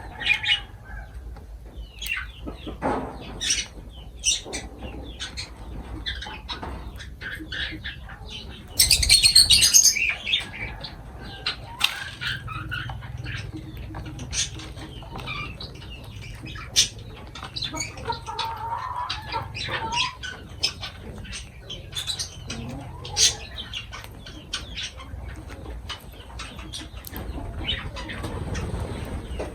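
Pet lovebirds calling with many short, sharp chirps and squawks, with a loud burst of wing flapping about nine seconds in.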